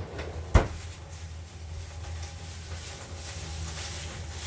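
Kitchen handling noise: one sharp knock about half a second in, over a steady low hum.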